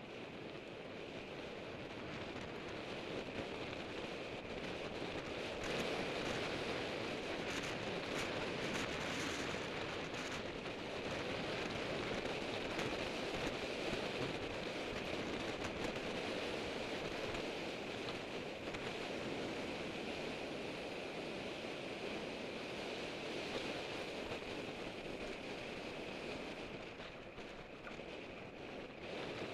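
Wind rushing over a helmet camera's microphone as a road bike rides in a fast pack: a steady rushing noise that grows louder over the first few seconds as the speed rises.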